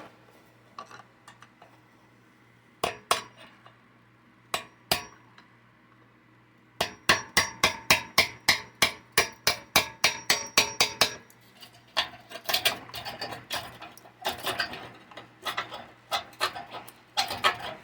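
Hammer blows on metal while a defective attic fan is being removed: a few single knocks, then a fast run of strikes at about four a second for some four seconds, then scattered knocks and clatter.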